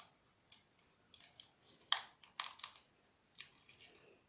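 Scattered light clicks and taps, the loudest about two seconds in: a small packet of powder being tapped and shaken empty into a plastic container.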